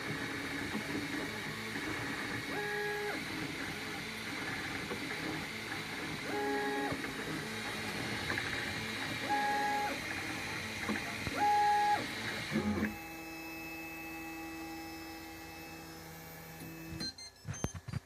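MakerBot Replicator 2 3D printer running: a steady whirr of motors and fans, with four short held notes from the stepper motors as the head makes moves. About thirteen seconds in, the motion stops as the print finishes, leaving a quieter steady fan hum, then a few clicks near the end.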